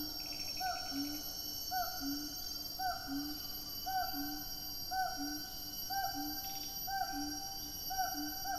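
A long series of low hooting animal calls, about one a second, each note rising at its start, coming quicker near the end, over a steady high-pitched whine.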